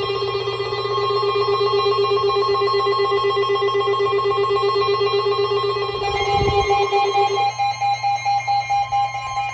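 Emergency Alert System warning tones. A rapidly pulsing, ringing electronic alarm tone changes about six seconds in to a higher two-tone alarm, over a low steady hum.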